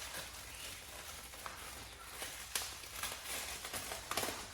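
A packaging bag rustling and crinkling as it is handled and opened, with a few sharp clicks, the loudest about two and a half seconds in and again near the end.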